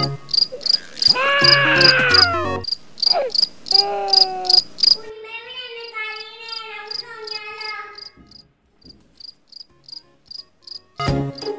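Crickets chirping: an even series of short, high chirps, about three a second, that thin out and stop shortly before the end. Over the first half come several longer pitched sounds whose pitch wavers.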